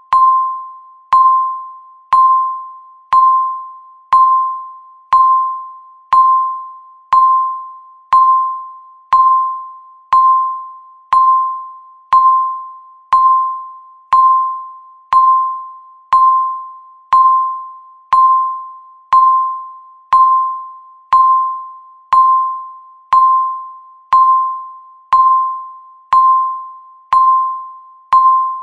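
A countdown timer's tick sound: a single clear electronic ding, struck once a second at a steady rate, each one starting sharply and fading away before the next.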